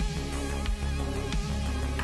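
Electronic outro music with a heavy bass and a steady beat, about one stroke every two-thirds of a second.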